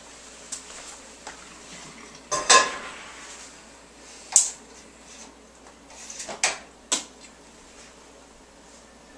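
Pots and a strainer clanking on a stovetop as boiled potatoes are moved into the strainer: about five sharp metal knocks, the loudest about two and a half seconds in with a short ring.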